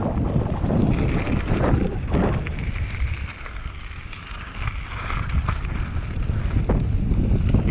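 Wind rushing over the camera's microphone during a fast mountain bike descent, with the tyres crunching and rattling over loose gravel. The rush drops quieter for a second or so in the middle, then builds again.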